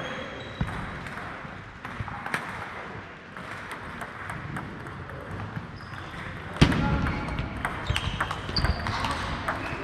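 Table tennis balls clicking off bats and tables, scattered at first, then a quick run of hits in a rally after a loud knock about two-thirds of the way through.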